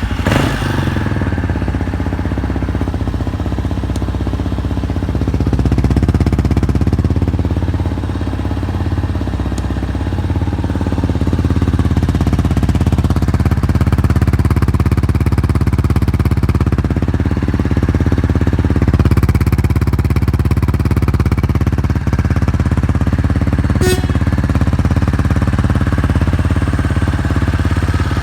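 Yamaha Tricker's 250 cc air-cooled single-cylinder four-stroke engine, breathing through a Dirt Freak Delta full exhaust, fires up at once and runs steadily at idle. It runs evenly, with no abnormal noises.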